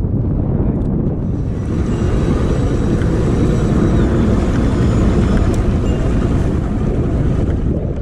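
Strong wind buffeting the microphone, giving a loud, dense rumble.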